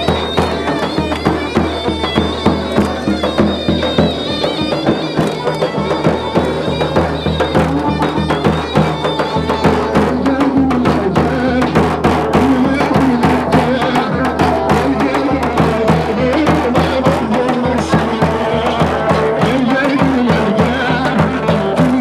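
Turkish folk music: a reedy, wavering wind-instrument melody over a steady low drone and a fast, regular drum beat.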